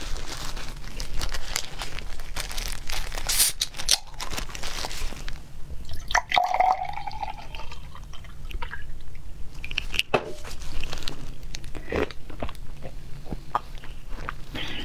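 Milk poured from a can into a tall glass midway through, amid scattered clicks and the rustle of plastic-gloved hands.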